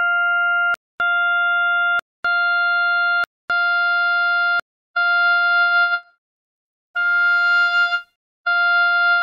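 Synthesized oboe notes on F5, built from sine waves by additive synthesis: a row of steady one-second tones near 700 Hz with short gaps, each note adding one more overtone and growing brighter. The last notes waver in loudness, and one about seven seconds in has many more overtones and a breathy edge.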